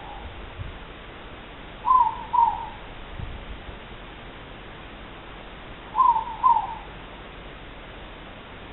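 Morepork (ruru) calling its two-note "more-pork" hoot twice, about four seconds apart, the second note of each pair slightly lower. A fainter call sounds right at the start.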